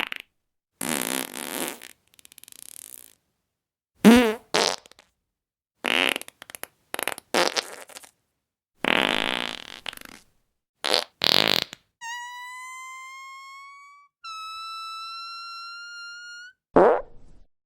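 A run of separate fart sound effects, each a second or less with silent gaps between them; the loudest, about four seconds in, wobbles in pitch. Near the end come two long, thin, high-pitched squeaky farts of about two seconds each, rising slightly in pitch, the second higher than the first, followed by one more short fart.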